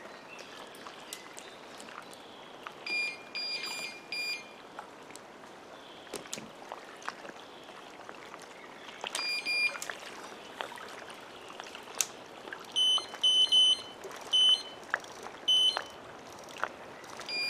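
Electronic carp bite alarms on a rod pod beeping in short runs: one lower-pitched alarm beeps about four times a few seconds in and twice more around nine seconds, and a second, higher-pitched alarm beeps about five times near the end. Small clicks and knocks of tackle being handled, over faint lapping water.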